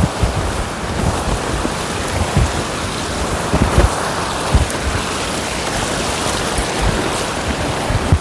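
Wind buffeting the microphone in irregular low thuds over a steady rushing noise.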